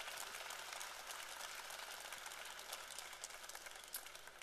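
Large audience applauding, a dense patter of many hands clapping, thinning out near the end.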